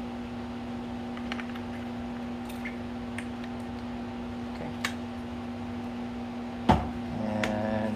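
Small plastic clicks and taps as parts of a printer drum unit are handled and fitted, with one sharper knock about two-thirds of the way in, over a steady low hum.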